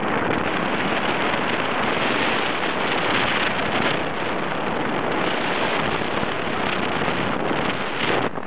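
Steady rush of wind buffeting the microphone of a camera on a moving motorcycle, with no clear engine note standing out.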